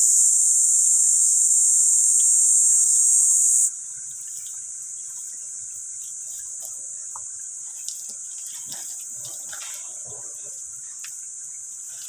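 Steady high-pitched chorus of insects, loud for the first few seconds and then suddenly much quieter. Faint scrapes and rustles of a hand digging in mud come through in the second half.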